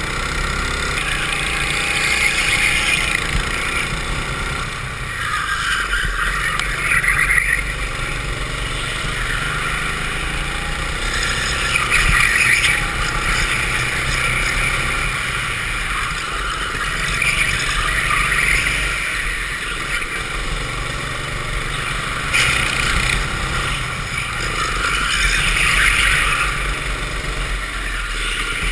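Go-kart engine running hard, heard from the kart itself, its sound swelling and easing every few seconds as the throttle opens and closes through the corners. A single sharp knock about two-thirds of the way through.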